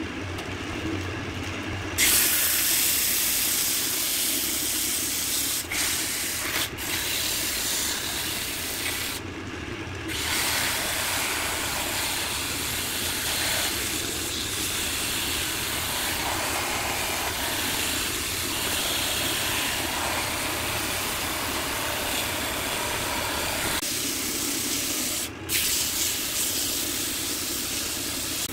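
Wood lathe running with a steady hum while sandpaper is pressed against the spinning colored-pencil-and-epoxy bowl, giving a loud, even sanding hiss. The hiss comes in about two seconds in and eases off briefly twice as the sandpaper is lifted and moved.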